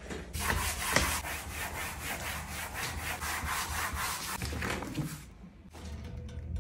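A thin plastic sheet rubbed briskly back and forth under flat hands on a wooden tabletop, to charge it with static electricity. It makes a rapid scratchy rubbing in quick strokes that stops about five seconds in.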